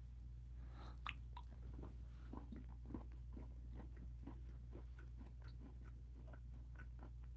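Close-miked chewing of a chocolate confection bar with crisp fruity cereal pieces: many small, irregular crunches and mouth clicks, with a sharper crunch about a second in, over a steady low electrical hum.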